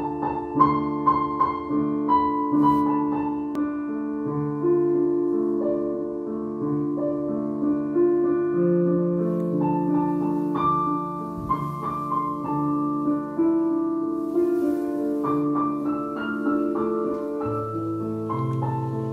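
Background piano music, a melody of long held notes over chords.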